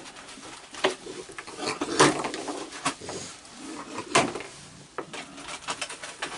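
Irregular sharp taps and knocks, roughly one a second, as cookies are tossed down onto a wooden deck among feeding raccoons.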